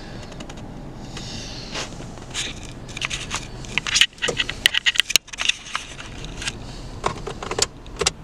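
Irregular clicks, scrapes and rustles of something being handled inside a parked car, loudest about halfway through, over the low steady hum of the car idling in Park.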